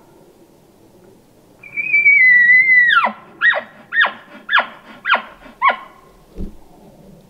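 Bull elk bugling: a high whistle held for about a second, sliding down, then five chuckles about two a second.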